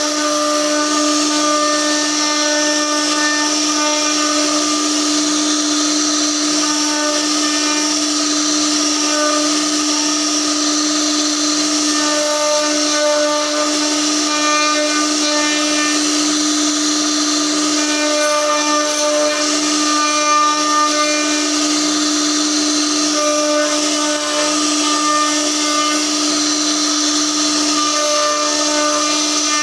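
CNC router spindle carving a relief pattern into a wooden door panel. It gives a steady high whine over a cutting hiss, and the higher tones come and go as the bit moves through the wood.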